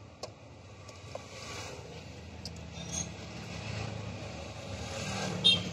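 A few light clicks and taps from car wiring and connectors being handled under the dashboard, over a low steady background hum; the loudest click comes near the end.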